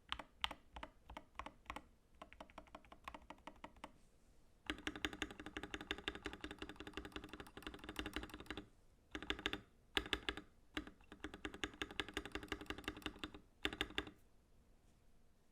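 Typing on an Epomaker TH80 Pro gasket-mount mechanical keyboard with factory-lubed Gateron Yellow Pro 2.0 linear switches, a steel plate and PBT keycaps. The keystrokes start out separate, then come as fast, continuous typing in bursts with short pauses, and stop about a second before the end.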